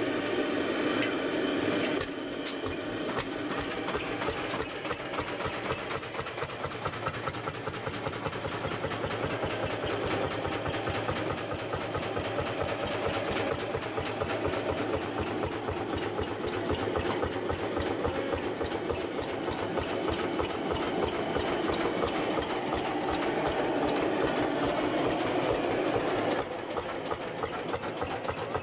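Lanz Bulldog single-cylinder two-stroke hot-bulb engine running at idle with a rapid, even pulsing beat.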